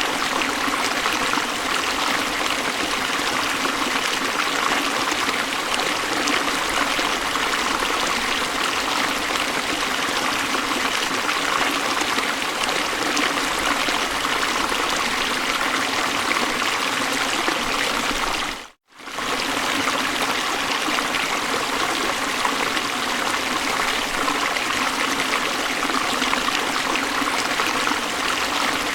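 River water rushing steadily over a falls or rapids. A short drop to silence about nineteen seconds in, after which the same flow resumes.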